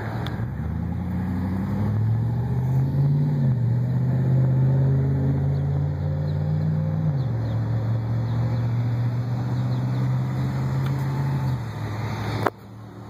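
A utility bucket truck's engine running with a steady low hum. The pitch rises about a second in, wavers briefly, then drops to a lower steady pitch about seven seconds in. It fades out near the end, where a click is followed by much quieter sound.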